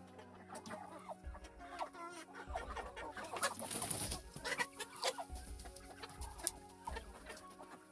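Chickens clucking softly, a string of short, scattered calls.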